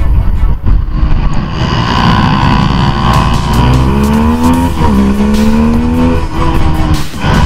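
Bajaj Pulsar RS 200's single-cylinder engine pulling hard under heavy wind rush at track speed. The revs climb, fall briefly at an upshift about five seconds in, then climb again.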